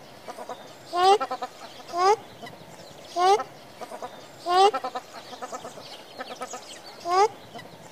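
Common shelduck calling: a loud, short call rising in pitch, repeated about once a second, with quicker, fainter notes in between.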